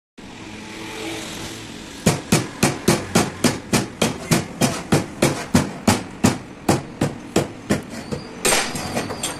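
Honda CG 125 front fork inner tube being yanked repeatedly against its bottom case to pull them apart, a sharp metal knock each stroke, about three to four knocks a second, starting about two seconds in and running for around six seconds.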